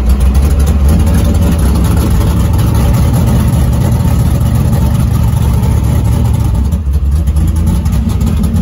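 A 1964 Chevrolet Chevelle drag car's engine running loud, heard from inside the cabin as the car drives along. The low rumble holds steady, with a brief dip about seven seconds in.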